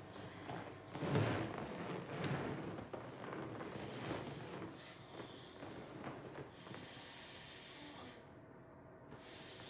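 A person snoring, with rough, rattling breaths, the loudest about a second in.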